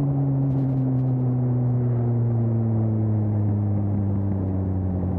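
Suzuki GSX-S 750 inline-four with an aftermarket Storm exhaust running under way, its engine note sinking slowly and steadily as the bike eases off.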